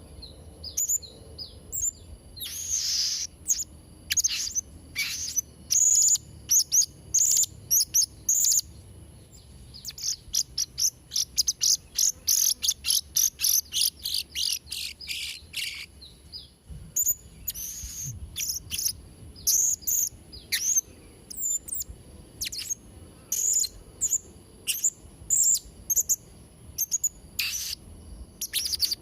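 Blue-crowned hanging parrot (serindit) calling: rapid runs of short, shrill, high-pitched chirps, broken by a couple of brief pauses.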